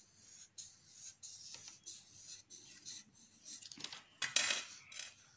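Felt-tip marker scratching across paper in short drawing strokes, with a louder scratchy rustle of the paper about four seconds in.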